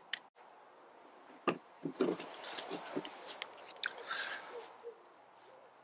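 Handling noise close to the microphone: a few soft knocks about a second and a half in, then a couple of seconds of rubbing and rustling.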